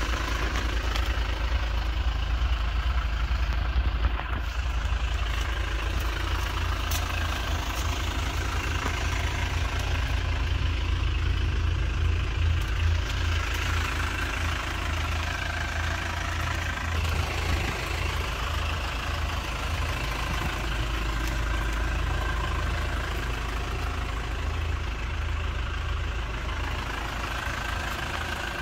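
Hyundai Grand Starex van's engine idling steadily, a low continuous rumble.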